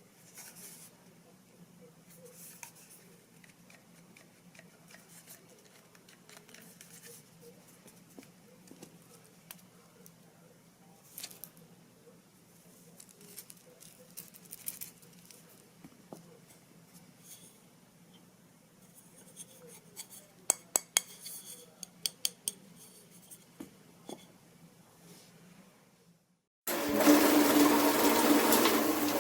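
Faint clicking and handling of plastic parts, with a quick run of sharp clicks, then about 27 s in water suddenly gushes from a handheld shower head, a loud steady spray.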